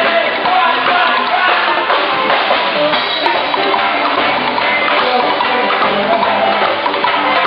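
A band playing live, with drum kit and hand percussion keeping a steady beat under the other instruments.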